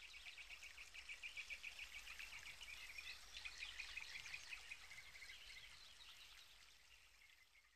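Near silence, with faint, rapid high-pitched chirping that swells in the middle and fades out near the end, over a faint low hum.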